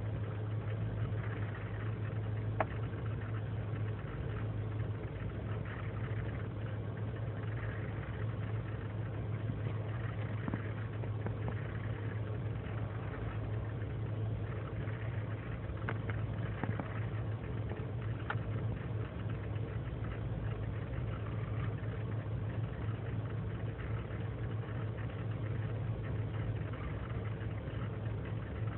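2003 GMC Sierra's 5.3-litre V8 running steadily at a raised cold-start idle of about 1600 rpm, with a few faint clicks. When cold it idles rough and throws lean and misfire codes, which the owner puts down to a failing intake manifold gasket.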